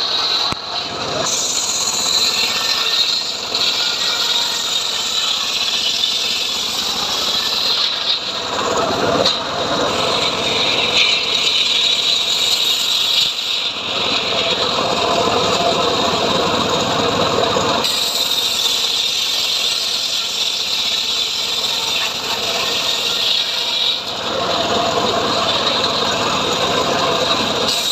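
Homemade srekel sawmill, an engine-driven saw, running and cutting sengon wood. The cutting noise grows heavier about a third of the way in, eases past halfway, and swells again near the end.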